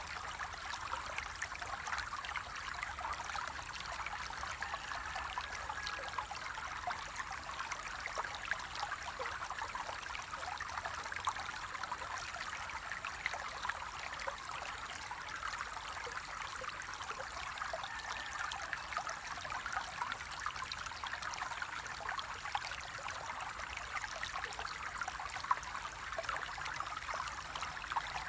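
Water flowing in a small stream, a steady rushing trickle with fine splashing detail throughout.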